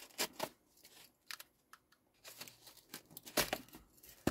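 Pocketknife blade scraping and sawing at plastic packing tape on a cardboard box, with rustling as the box is handled. The scrapes come short and irregular, and the loudest one is about three and a half seconds in.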